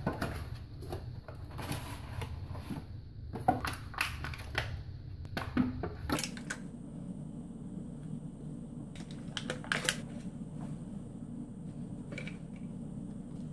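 Handling noise of a toilet wax ring being unwrapped and worked by gloved hands: crackling and rustling of its plastic wrapper and box, dense through the first six seconds. After that come only scattered soft clicks and taps as the wax is pressed into the flange, over a steady low hum.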